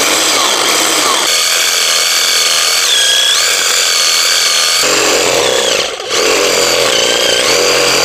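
Cordless reciprocating saw running as its blade cuts into the bark and wood of a tree trunk. The motor's whine sags in pitch as the blade bites, about three and again seven seconds in, and the saw briefly eases off about six seconds in.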